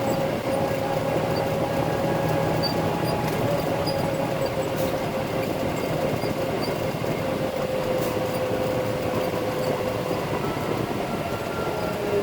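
Concrete mixer truck's diesel engine and drivetrain running steadily, with a whine that slowly drops in pitch and a higher whine coming in near the end.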